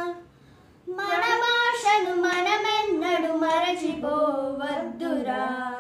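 A young girl singing a Telugu song with no accompaniment. A long held note ends just as the sound begins, then after a short breath she starts a new phrase whose pitch moves up and down and settles lower near the end.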